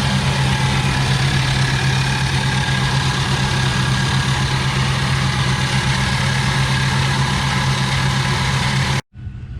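2003 Mercury Mountaineer's engine idling with a loud, steady noise from the accessory belt drive, which the owner traces by stethoscope to a loose idler pulley. The sound cuts off suddenly near the end.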